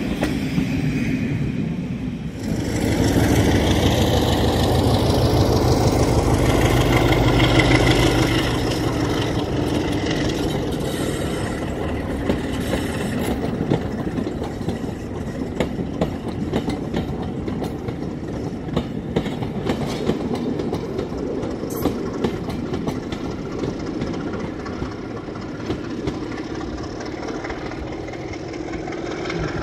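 A BR Class 33 diesel locomotive's Sulzer eight-cylinder engine running under load as it pulls a train of coaches away, loudest in the first few seconds and then slowly fading as the train goes off into the distance. The coach wheels clatter over the rail joints throughout the fade.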